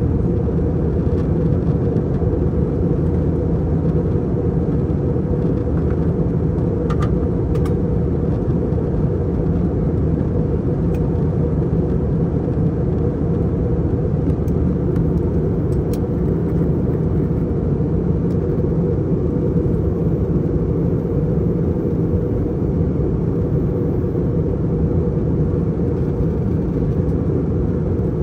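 Steady low drone inside an Airbus A321 cabin in flight: engine and airflow noise, with a few faint clicks about seven and sixteen seconds in.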